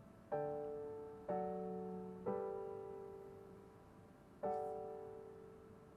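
Piano-type keyboard chords playing back: four chords struck about a second apart, the last after a longer gap, each left to ring and slowly fade.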